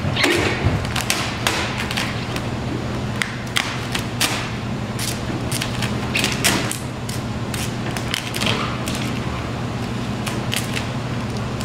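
A squeegee fitted with a shield guard is worked over vinyl wrap film on a car hood. It makes a run of quick, irregular scraping strokes over a steady low hum.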